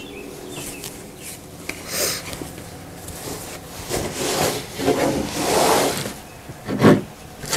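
Upholstery fabric rustling and sliding across a tabletop as it is gathered and shifted, in several swishes, with a dull thump near the end.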